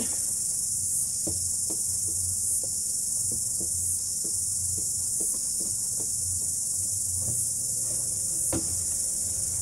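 Steady high-pitched shrilling of insects, with faint scattered clicks and knocks as a plastic tap's nut is threaded on by hand inside a plastic bin.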